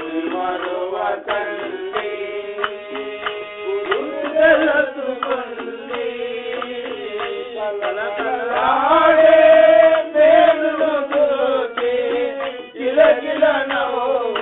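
Telugu devotional bhajan: a voice singing to tabla and other percussion, with a long held note a little past the middle as the loudest part.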